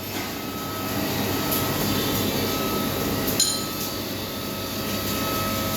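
Metal parts and tools clinking and knocking as sprockets and bolts are fitted to a machine, with one sharp metallic knock about three and a half seconds in, over a steady hum.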